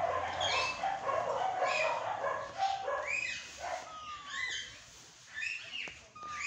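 Ring-necked parakeets chattering and squawking: many short, overlapping calls, busiest in the first few seconds and thinning out after about four seconds.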